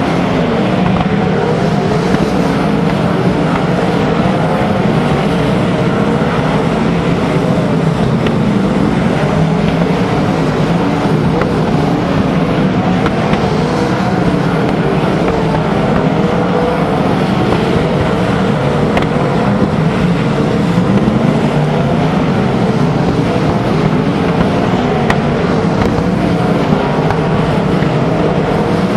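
A field of winged sprint cars racing on a dirt oval, their V8 engines running hard in a loud, continuous din. Several engine pitches waver up and down as cars lift and accelerate through the turns.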